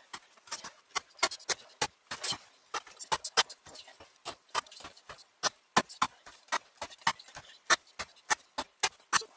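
Toporsib "Plotnik No. 2" carpenter's axe chopping again and again through 10 mm hemp rope onto a wooden board: short sharp knocks, about two to three a second, as cut after cut is made in an edge-retention test.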